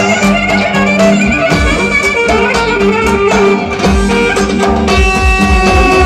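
Live Roman havası dance music: a davul drum beating a steady rhythm under a sustained melody line.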